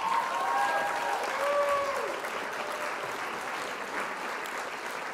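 Crowd applauding, with a few drawn-out cries over the clapping in the first two seconds. The applause eases off a little after that.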